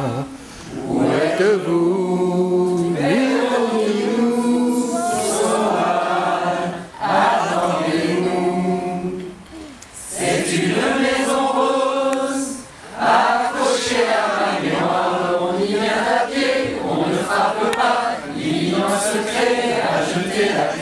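Mixed choir of men's and women's voices singing unaccompanied, in long held phrases with brief pauses for breath between them.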